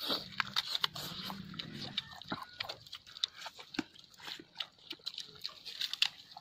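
Close-up eating sounds: wet chewing and lip smacking with many sharp, irregular crunchy clicks as fried chicken and crisp papad are bitten and eaten by hand.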